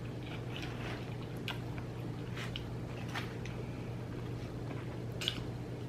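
A person chewing a mouthful of a soft, wet grinder sandwich close to the microphone: scattered faint wet smacks and squishes. A steady low hum runs underneath.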